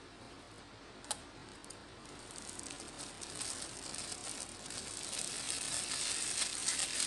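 Clear plastic shrink-wrap crinkling and crackling as it is peeled off a paperback book, growing louder over the last few seconds. A single sharp click about a second in.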